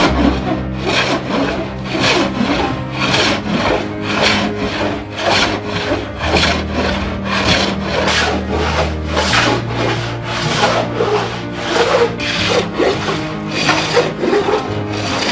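Hand plane shaving the wooden strip planking of a boat hull in quick repeated strokes, a little over two a second.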